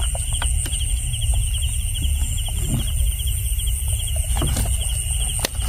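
Night insects trilling steadily in fast, even pulses over a low rumble, with scattered light clicks and knocks as carp are worked out of a gill net.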